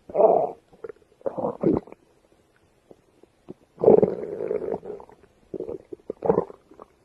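Stomach growling in four bursts with quiet gaps between: two short ones in the first two seconds, then a longer one from about the middle, followed by a shorter one near the end.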